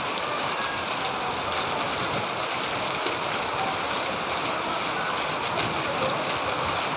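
Heavy rain pouring steadily onto corrugated roofs and a concrete yard, a dense, even hiss that does not let up.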